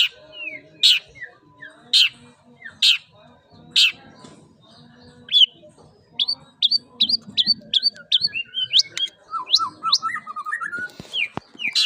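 Long-tailed shrike (pentet) singing a mimicked song. It opens with loud, sharp, falling notes about once a second, then breaks into a quick run of short rising notes and a lower warbling trill.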